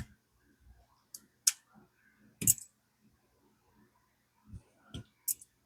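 Sharp clicks and snaps from a Haisstronica hand wire stripper being squeezed onto a small wire and released, about seven clicks spread irregularly, the loudest about two and a half seconds in.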